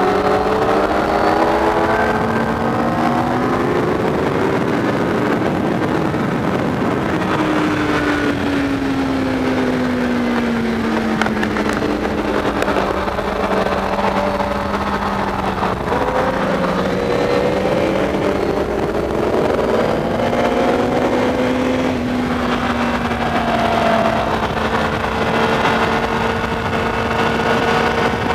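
Motorcycle engine at track speed, heard from on board, its note falling and rising with throttle and gear changes, with a sudden step up about halfway through, over a steady rush of wind noise.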